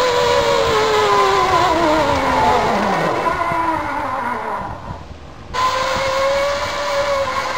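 Zip line trolley pulleys running along the steel cable: a whine that falls steadily in pitch for about three seconds, breaks off briefly past the middle, then comes back at a nearly steady pitch.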